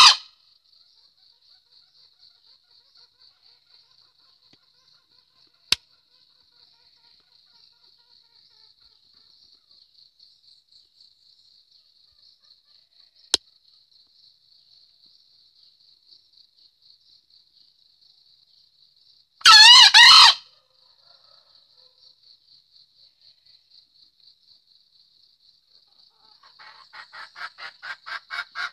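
Green junglefowl cock crowing once, a single call about a second long about two-thirds of the way in, over a faint, fast, high insect trill. Near the end a rapid run of pulsed calls starts and grows louder.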